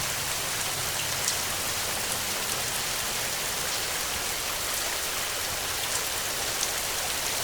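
Steady rain: an even hiss of falling rain, with a few separate drops ticking now and then.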